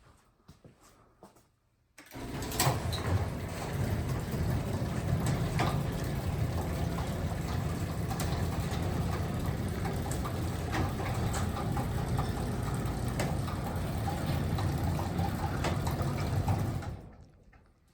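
Craftsman 3/4 hp garage door opener starting about two seconds in and running steadily for about fifteen seconds, moving a heavy sectional door with scattered clicks from the door, then stopping. The owner finds the door unbalanced on its springs, so the opener bears much of its weight.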